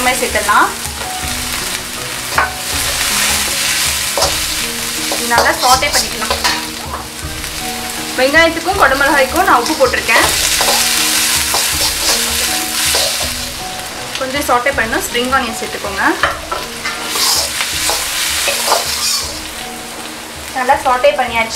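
Onions and green capsicum sizzling in hot oil in a carbon steel wok, stir-fried with a perforated metal spatula that scrapes and clatters against the pan again and again.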